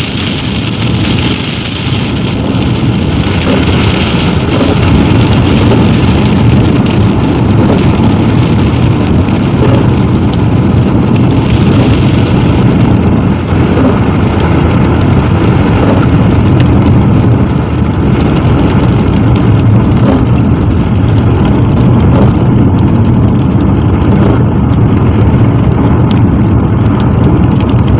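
Steady road and engine noise of a car driving on a wet highway, heard from inside the cabin, with rain on the windscreen.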